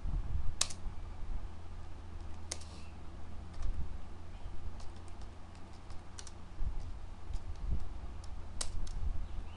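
Typing on a computer keyboard: irregular, spaced-out key clicks over a steady low hum.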